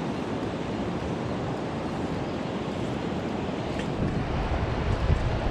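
Steady rush of river water with wind buffeting the microphone; the wind rumble grows stronger near the end.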